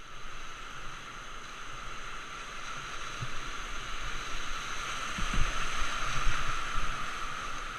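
Rushing whitewater of a river rapid around an open canoe, getting louder about halfway through as the canoe runs into the waves, with a few brief low thumps.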